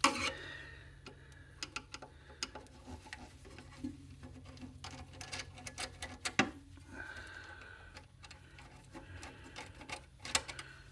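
Irregular small clicks and taps of tools and metal parts being handled while dismantling electronic equipment, with one sharper knock about six and a half seconds in.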